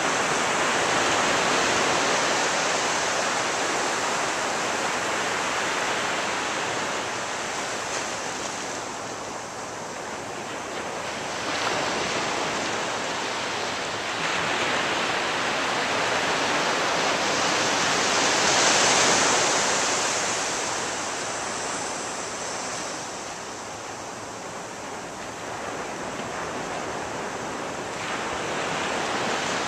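Ocean surf breaking and washing up the beach: a continuous rushing that swells and ebbs, with a wave surging in sharply about twelve seconds in and the rush at its loudest about two-thirds of the way through.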